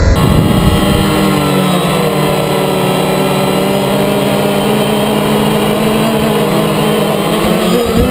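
DJI Phantom quadcopter's motors and propellers humming steadily in flight, heard close-up from the camera mounted on the drone, with small shifts in pitch as the rotors adjust.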